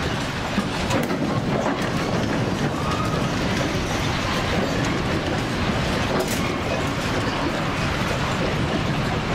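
Loud, steady rumbling and rattling of retired shinkansen display cars shaking on their rails during a strong earthquake.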